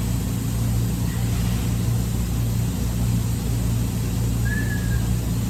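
Steady low mechanical hum, with a brief high squeak about four and a half seconds in.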